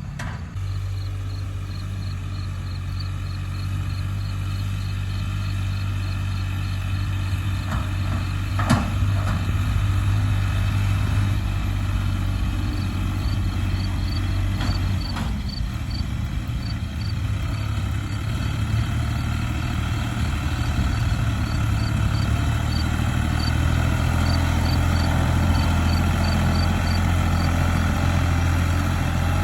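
Case IH JX60 tractor's diesel engine running at a steady speed, with a faint high-pitched ticking. Two sharp knocks come about 9 and 15 seconds in, and the engine sound grows a little fuller from about halfway through.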